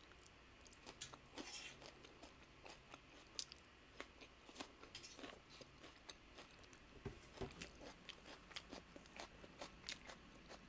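A person chewing crunchy food: faint, irregular crisp crunches and small clicks.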